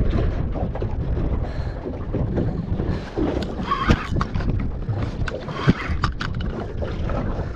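Wind rumbling on the microphone, with a few sharp clicks and knocks about four and six seconds in.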